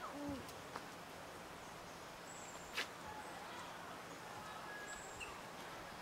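A short, arched hooting call from an animal right at the start, over quiet outdoor ambience. A single sharp click comes at about three seconds in, with a few faint high chirps here and there.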